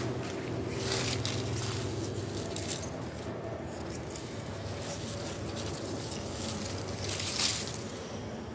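Tomato plants' leaves and stems rustling in short bursts as ripe tomatoes are picked off by hand, the loudest rustle about seven seconds in, over a faint steady low hum.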